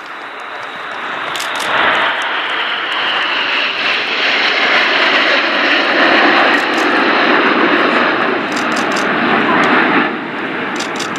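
A formation of nine BAE Hawk T1 jet trainers flying past, their Adour turbofans making a loud, rushing jet noise that builds over the first two seconds, holds steady, and eases a little near the end.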